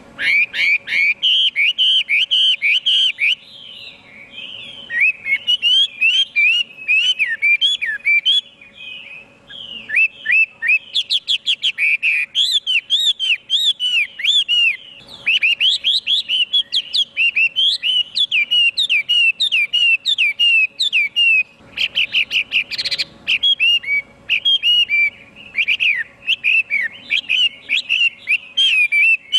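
Chinese hwamei singing a loud, fast, continuous song of varied whistled phrases, with short lulls about four and nine seconds in.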